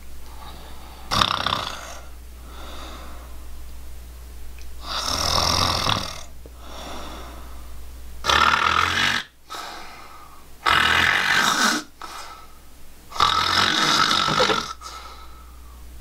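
A man snoring: about five loud snores a couple of seconds apart, with quieter breaths between.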